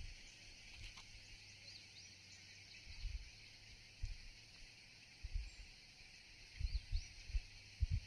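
Steady high-pitched insect chorus with a couple of brief bird chirps, over dull low thumps on the microphone that come more often near the end.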